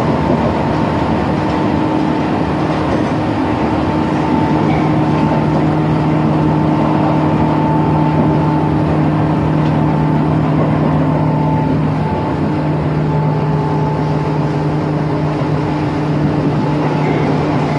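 Tobu 10030 series electric commuter train heard from inside the passenger car while running: the traction motors make a steady hum of several held tones over the rumble of wheels and track. About twelve seconds in the motor tones shift, one dropping out and a slightly higher one taking over.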